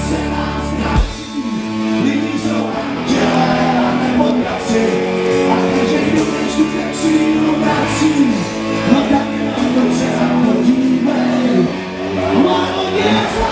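Live rock band playing with singing, recorded off the stage monitors so the sound is rough. About a second in the bass and kick drum drop away, leaving voices and guitar over cymbals, and the full band comes back in at the very end.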